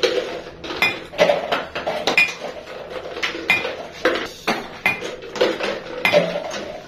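Ping pong balls bouncing off a plate and dropping into a plastic bucket: a quick, irregular run of sharp light clicks and taps.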